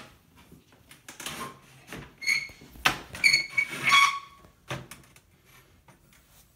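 Sliding closet door hardware being handled and fitted: a few sharp knocks and clunks, with brief high squeaks about halfway through.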